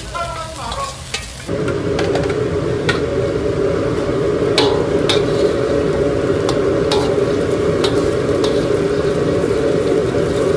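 Food frying with a steady loud roar, and now and then a sharp click of a utensil against the pan.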